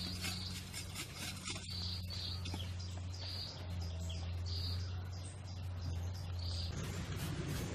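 Short high bird chirps repeating every second or so over a steady low hum; near the end a rougher, noisier sound takes over.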